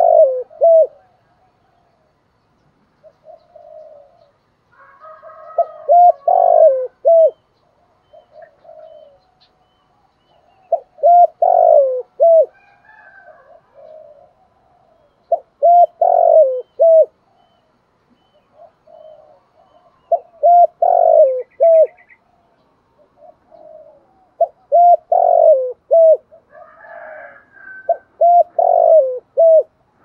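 Spotted dove cooing, repeating its several-note phrase about seven times, one every four to five seconds, with softer calls in between.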